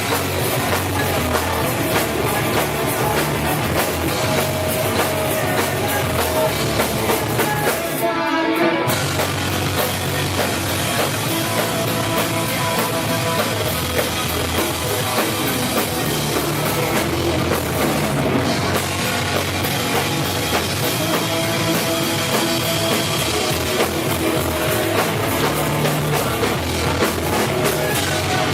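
A rock band playing loudly, with a drum kit driving throughout and a short break in the top end about eight seconds in.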